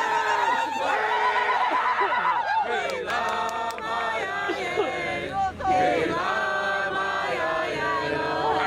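A crowd chanting and singing together, many voices holding long notes over one another, with some talking mixed in. A few sharp clicks come about three seconds in.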